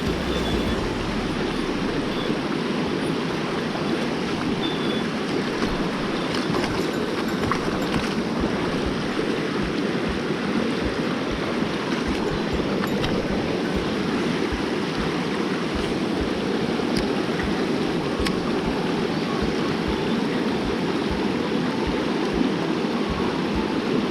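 Steady rushing of flowing river water, an even wash of noise that holds the same level throughout.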